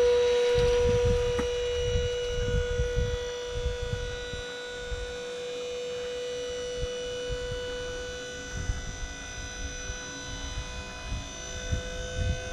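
Electric hydraulic pump motor of a dump trailer running with a steady whine, working the bed's lift; the pitch rises slightly near the end.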